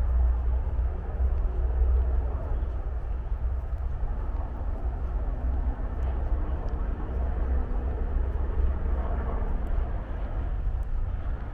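Steady low rumble of distant motor traffic, with no sharp events.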